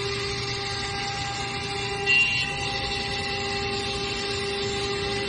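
Water-cooled spindle of a KT-1325 CNC router running and cutting into a wooden board: a steady whine over the hiss of the cut, briefly louder about two seconds in.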